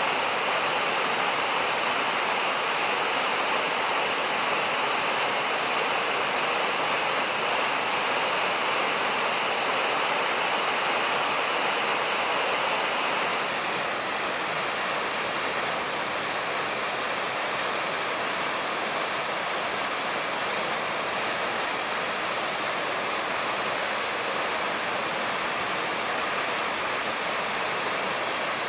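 Waterfall rushing steadily, a continuous even roar of falling water that drops slightly in loudness about halfway through.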